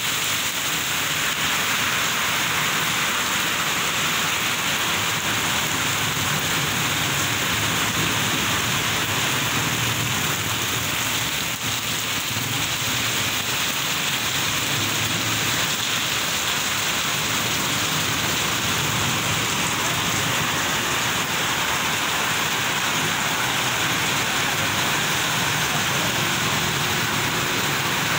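Torrential rain falling steadily onto a flooded street, an even, unbroken hiss of rain pouring into standing water.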